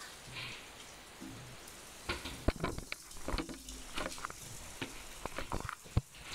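Irregular crackling and clicking handling noise on the camera's microphone while the camera is moved around, with sharp knocks from about two seconds in and one loud snap near the end, over a faint steady hiss.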